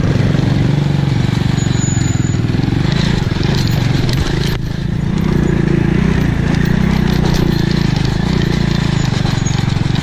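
Motorcycle engine running steadily under way on a dirt track, heard up close from the handlebars, with a fast pulsing note. The sound eases briefly about halfway through, then picks up again.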